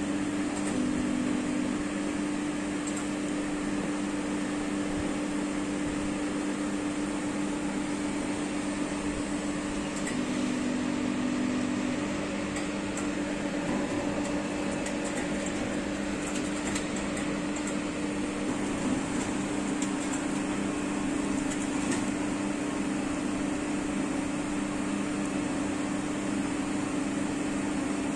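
Steady hum of a running Cobas e411 immunoassay analyzer, its fans and motors giving a constant drone with two low tones.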